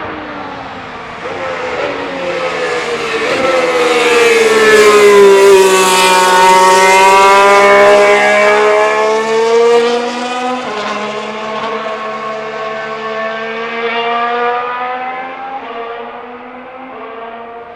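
Racing Bulls VCARB03 Formula 1 car's Red Bull Ford turbo V6 hybrid power unit passing close by at speed. It grows louder, holds a high engine note, steps down in pitch at a gear change about ten seconds in, then fades away.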